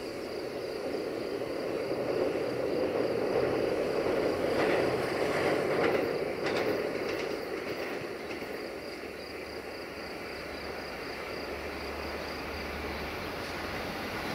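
Two-car diesel multiple unit running along the track: its engine and wheel rumble swell to a peak about five seconds in, with a few clicks from the wheels, then ease off to a steady run.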